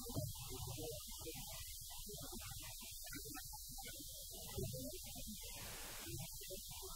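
Steady low electrical hum, with faint, broken fragments of sound scattered over it and two brief low swells, one just after the start and one about four and a half seconds in.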